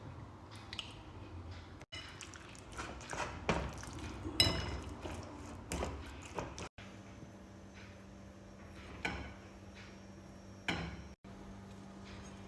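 Kitchen preparation sounds: dishes and utensils clinking and knocking in a string of short takes, the sharpest knock about four and a half seconds in, over a steady low hum in the later part.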